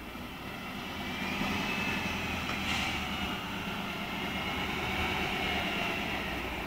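Tatra 148 fire truck's air-cooled V8 diesel engine running under load as the truck drives over rough ground. It gets louder about a second in and holds there, with a high whine above the engine note.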